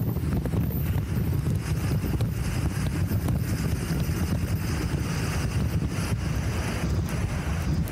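Wind buffeting the microphone of a camera on a moving bicycle: a steady low rumble with a thin hiss above it.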